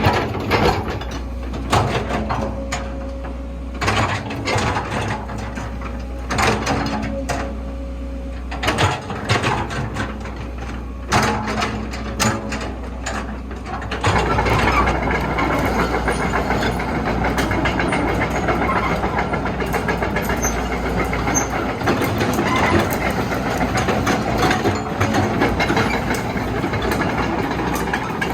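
Komatsu PC130-6E excavator with its S4D102E diesel engine running and a steady low hum throughout, while repeated sharp metallic clanks and knocks sound from the machine. About halfway in, a denser, continuous mechanical rattle sets in and stays to the end.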